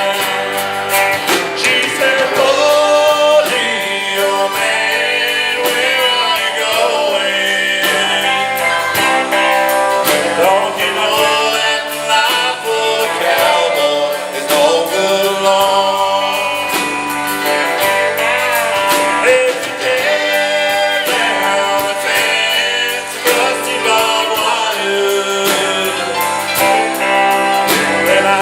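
Live country band playing a song, with singing over guitars and a steady rhythm.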